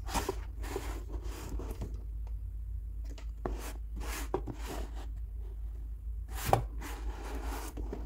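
Hands handling and turning a cardboard toy box with a clear plastic window: irregular rubbing and scraping against the cardboard, with a sharper knock about six and a half seconds in.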